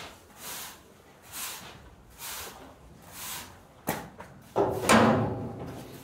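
Silage being scraped and pushed along a concrete feed alley with a long-handled tool, in soft swishing strokes about once a second. About four seconds in come a sharp knock and then a louder clatter with a ringing edge.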